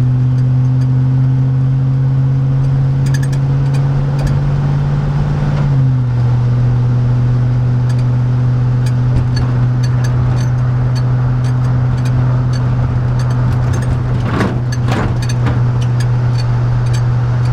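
Chevrolet 5.3L LM7 V8 with a Cherry Bomb muffler, a steady low exhaust drone heard inside the truck's cab while cruising. About six seconds in the pitch drops slightly as engine speed eases, then holds steady.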